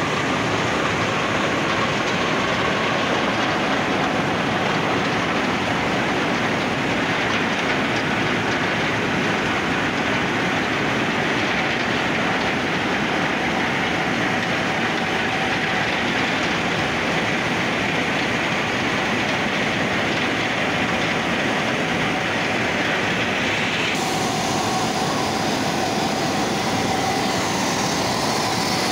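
Cement mill tyre being ground in place by a motor-driven grinding machine: a loud, steady grinding noise. About three-quarters of the way through, the hiss lessens and a steady motor hum comes through.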